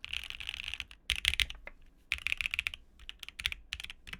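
Fast typing on a mechanical keyboard with linear switches: rapid runs of keystroke clicks, broken by two short pauses.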